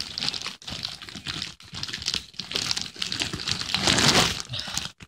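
Clear cellophane basket wrap crinkling and crackling unevenly as hands work at it, with a few brief gaps.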